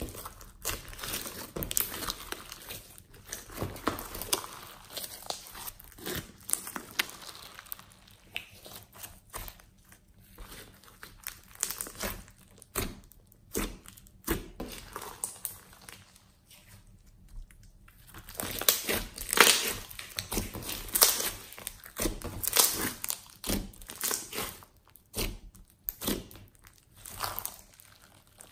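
Hands kneading, squeezing and stretching glossy slime with foam beads and glitter mixed in: a run of irregular sticky crackles and clicks. It thins out about halfway, then is at its loudest about two-thirds in.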